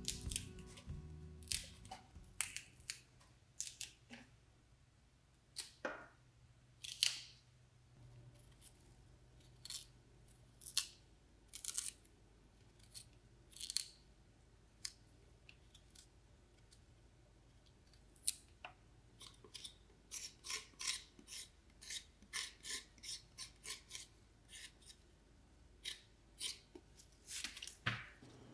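Short, sharp cutting and scraping strokes at an irregular pace while ponytail radishes are trimmed for kimchi. The strokes come faster and closer together in the last third.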